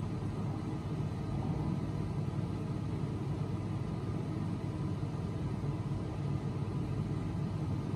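Steady low rumble of background noise, even throughout, with no music heard.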